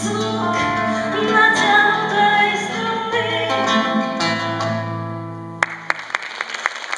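Classical nylon-string guitar playing the closing instrumental of a song, plucked notes ringing on. A little over five seconds in, the playing ends with a sharp knock and a few scattered hand claps begin.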